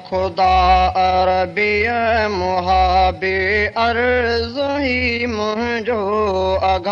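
A man's voice singing the opening of a Sindhi Islamic devotional song in long, wavering held notes, with short breaths between phrases.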